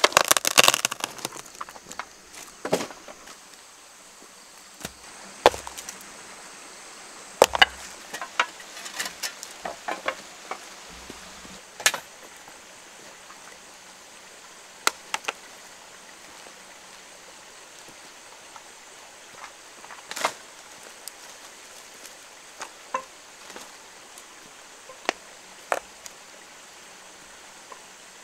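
A burst of dry thatch and bamboo crunching at the start. Then single sharp knocks from a hand hoe chopping into the earth and dry bamboo debris, spaced irregularly a second to a few seconds apart.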